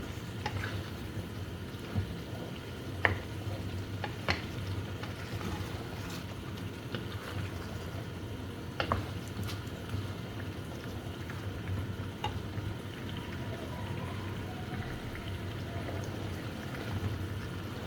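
Chicken pieces frying in spiced oil in a karahi, a steady sizzle during the bhunai stage, with a few sharp clicks of a spoon against the pan.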